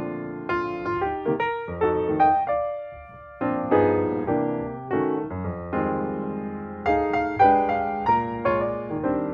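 Intro music: a piano melody with chords, struck notes decaying, with a brief pause about three seconds in.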